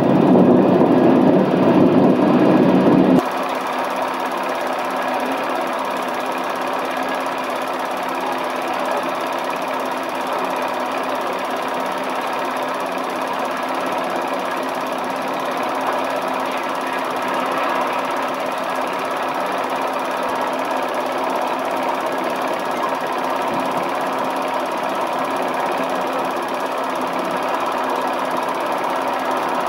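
A film projector running: a steady mechanical whirr with a fast rattle. A deeper, louder rumble fills the first three seconds and cuts off abruptly.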